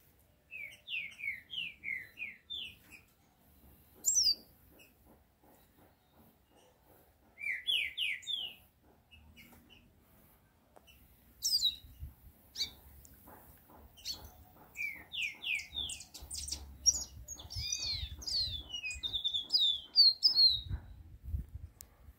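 A caged songbird, the kind kept as a chiviro verde, singing short bursts of quick downward-slurred notes, with a longer and more varied run of song in the second half.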